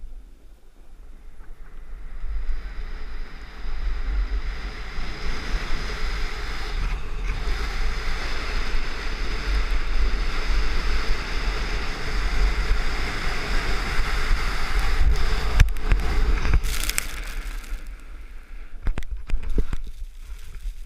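Wind buffeting the microphone and skis hissing and scraping over snow on a fast downhill run, building up about two seconds in and easing off near the end. A few sharp knocks come near the end.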